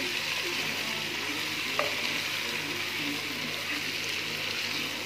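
Boiled meat and spice masala sizzling in hot oil in a pan while being stirred and sautéed with a silicone spatula, a steady frying hiss. One light knock of the spatula comes about two seconds in.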